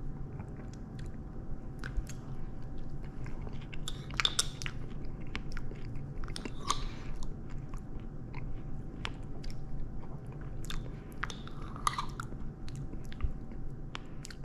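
A person eating soft no-bake cheesecake with a metal spoon from a small glass jar: chewing and mouth sounds, with many short clicks and scrapes of the spoon against the glass.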